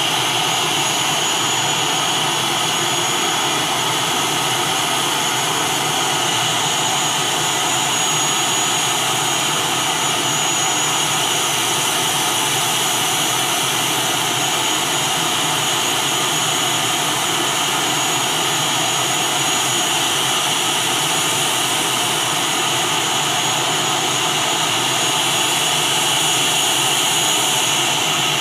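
ATR 72's twin Pratt & Whitney PW127 turboprop engines running at a steady idle: a high whine over a rushing hiss.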